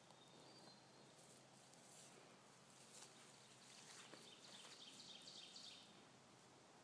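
Near silence: faint outdoor background hiss, with a run of faint, rapid high chirps about four to six seconds in.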